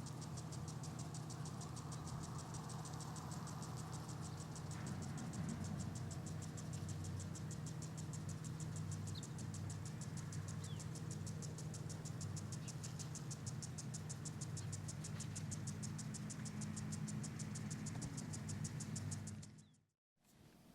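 Insect chirping in a fast, even pulse of several chirps a second, over a steady low hum. Both cut off abruptly near the end.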